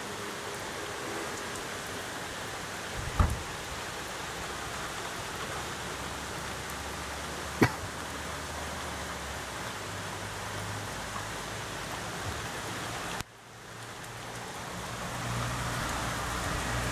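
Steady rain falling, an even hiss, with two sharp clicks about 3 and 7.5 seconds in. About 13 seconds in the rain hiss drops away abruptly and a low rumble builds up toward the end.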